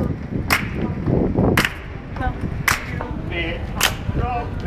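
Hand claps keeping a slow, steady beat: four sharp claps about a second apart.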